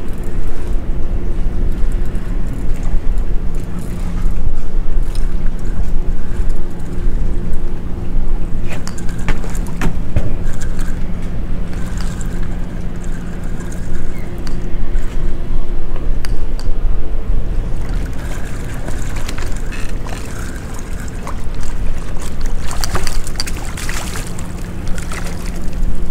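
A boat motor hums steadily at a low, even pitch under wind rumbling on the microphone, with scattered clicks and rattles about ten seconds in and again near the end.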